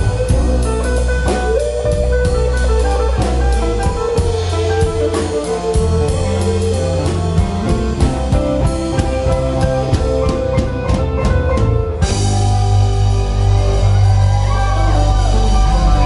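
Live band playing: drum kit, electric bass and guitars. The drums keep a steady beat that grows busier, then stops suddenly about twelve seconds in, leaving held chords ringing with wavering high tones over them.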